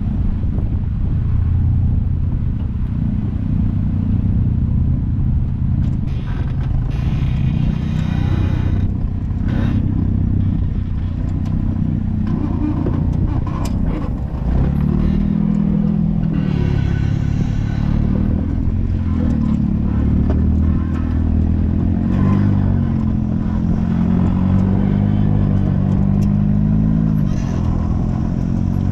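Off-road vehicle engine running under changing throttle, its pitch rising and falling again and again. There are two spells of hissing noise over it.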